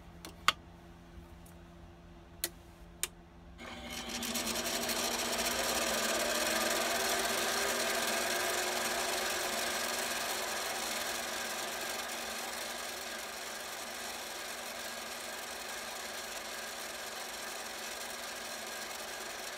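A few sharp clicks as the lathe's chip guard is swung shut, then the Harbor Freight 7x12 mini lathe starts about three and a half seconds in. Its motor and gears run steadily as the turning tool faces the end of the round bar stock.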